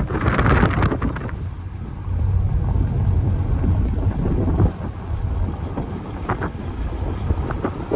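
Wind buffeting the microphone: a loud, uneven low rumble that surges and eases in gusts.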